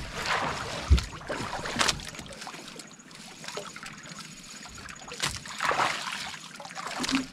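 Wind and sea noise on a small fishing boat, with several short knocks.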